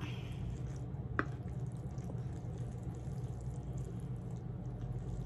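Wet, sticky squelching of sauce-coated noodles being stirred and lifted with a wooden fork, with one sharp click about a second in. A steady low hum runs underneath.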